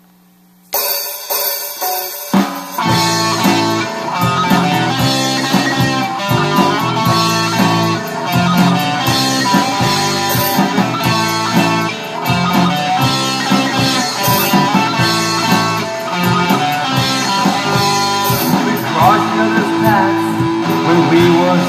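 Instrumental rock song intro: electric guitar playing over drums and bass. The music starts under a second in, and the low end fills out about two seconds later.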